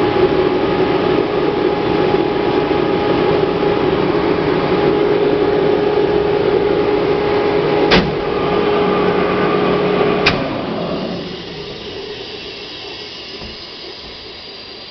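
Ingersoll-Rand SSR-EPE50 50 hp rotary screw air compressor running with a steady hum. A click about eight seconds in shifts its tone. After a second click about ten seconds in, the sound fades steadily as the machine winds down.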